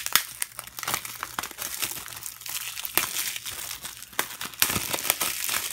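Plastic shrink wrap on a Blu-ray case crinkling and crackling continuously as it is handled and pulled off, with a few sharper snaps.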